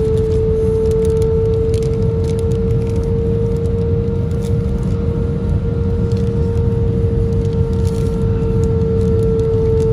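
Airliner cabin noise: a steady low rumble under a loud, constant mid-pitched whine, with faint crinkling of a paper napkin being handled.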